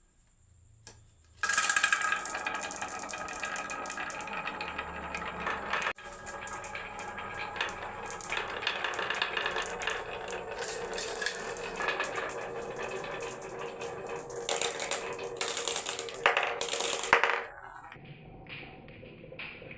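Many marbles rolling and clattering down a wooden marble run, a dense rattle of clicks that starts about a second and a half in and cuts off suddenly near the end, leaving a few lighter taps.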